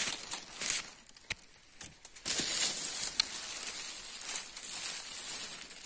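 Rustling of leaves and undergrowth as someone moves through the forest floor, an uneven hiss that swells and fades, with a couple of sharp clicks.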